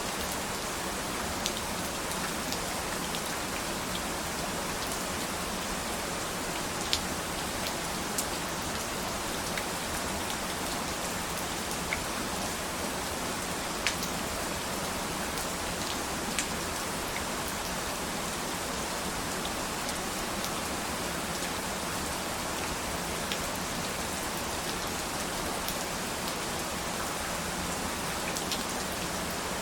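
Steady rain falling, an even hiss with scattered sharper drip ticks of individual raindrops hitting a surface.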